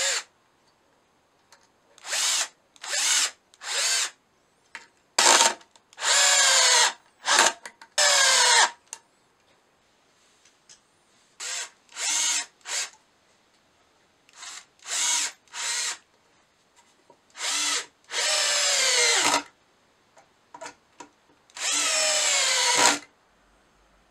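Cordless drill/driver driving long wood screws into pine, in a dozen or so trigger bursts, some short and some longer, with quiet gaps between. In the longer runs the motor's whine falls in pitch as each screw bites and draws tight.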